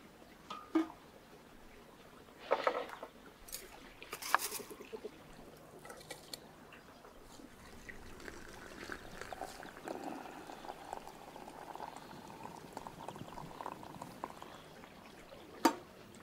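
Hot water pouring in a steady stream from a brass samovar's tap into a glass teapot for several seconds in the middle. There are a few light knocks before it and one sharp clink near the end.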